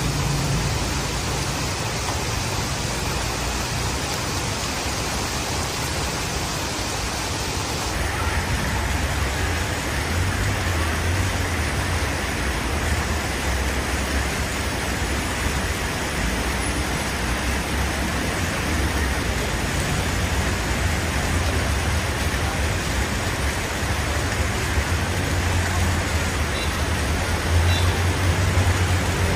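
Road traffic: a steady hiss with a low engine rumble, which grows stronger after about eight seconds when the sound changes abruptly.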